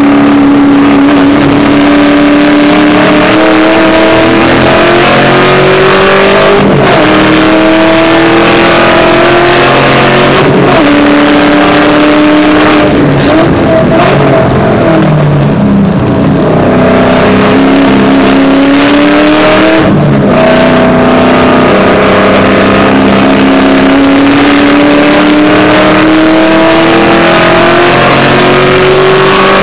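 Supercharged V8 of a Shelby GT500 with long-tube headers, heard from inside the cabin, pulling hard on track: the engine pitch climbs steadily and drops back at several upshifts, with a brief lift off the throttle near the middle.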